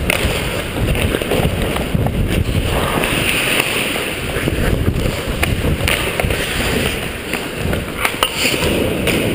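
Ice skate blades carving and scraping across the ice, with wind and movement rumbling on a helmet-mounted camera. Sharp clicks of hockey sticks and puck are scattered throughout.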